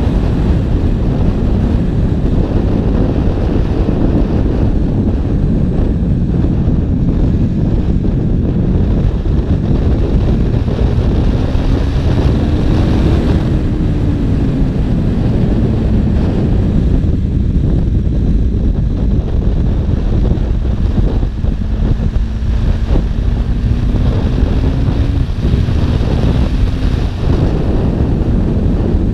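KTM 1290 Super Duke's V-twin engine running under way, heavily buffeted by wind noise on the microphone. The engine note climbs about a third of the way in and drops back, then rises again slowly later on.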